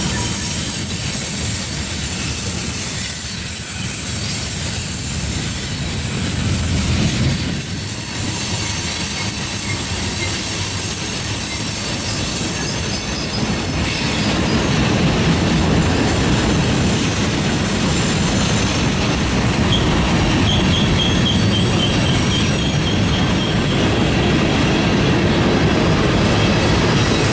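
A train rolling past on the mountain grade, its steel wheels squealing against the rails, with a steady rumble that grows heavier about halfway through.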